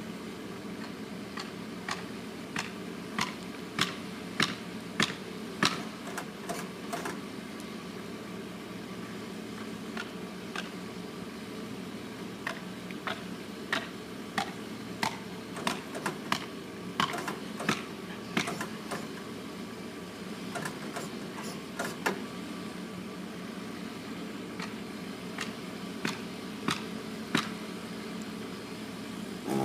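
An engine idling steadily, with sharp knocks in irregular runs from work at the base of the trunk.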